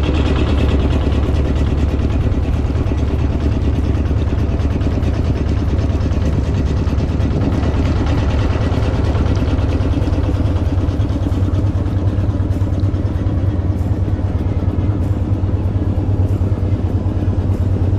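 An engine running steadily and loudly at close range, with a strong low hum.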